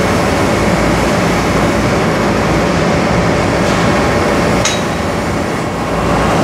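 TIG welding arc on aluminum running steadily as a dense hiss over a low hum, with one short sharp click about three-quarters of the way through.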